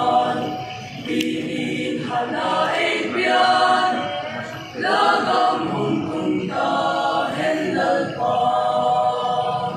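Mixed choir of men's and women's voices singing a hymn a cappella in held, chordal phrases, with brief breaks between phrases.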